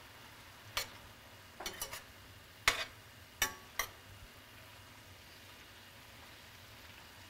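Metal slotted spoon clinking and scraping against a stainless steel sauté pan as vegetables are stirred in broth: about half a dozen sharp clinks in the first four seconds, the loudest near the middle, then none. Under it, a faint steady hiss from the simmering pan.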